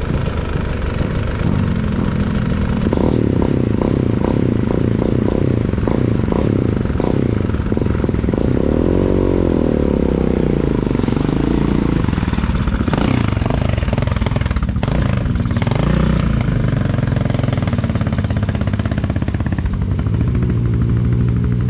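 Quad bike (ATV) engines running and revving, the engine pitch rising and falling several times, with one broad rise and fall about nine to eleven seconds in.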